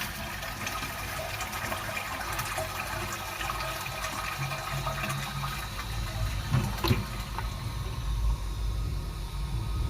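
Toilet being flushed after a new siphon and inlet valve were fitted: a steady rush of water through the bowl as the cistern empties and begins to refill, with a couple of small knocks about two-thirds of the way in.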